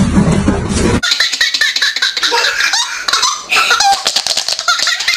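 A second of steady noise, then a baby laughing in repeated bursts.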